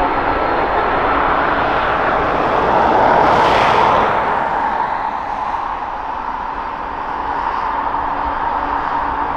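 Jet engines of a twin-engine widebody freighter rolling along the runway, with a steady whine. The noise swells to its loudest about three to four seconds in as the aircraft passes, then eases.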